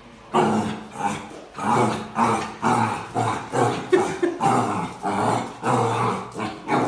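Puppy barking and growling at its own reflection in a mirror: a rapid run of short yaps, about two a second.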